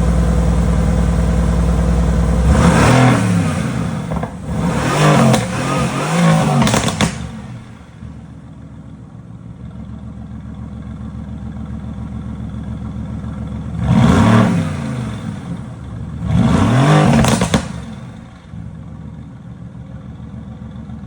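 2017 Mercedes-AMG GT's 4.0-litre twin-turbo V8 exhaust idling and revved in five quick blips, each rising and falling back to idle. Three come close together early, then two more after a stretch of idle.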